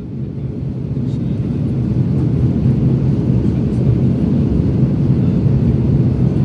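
Steady low rumble of an Airbus A321 in flight on approach, engine and airflow noise heard from inside the cabin. It fades in over the first second or so, then holds level.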